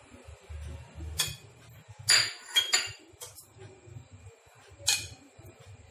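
Kitchen utensils and dishware clinking: about five sharp clinks with a short ring. The loudest comes about two seconds in and the last near the five-second mark.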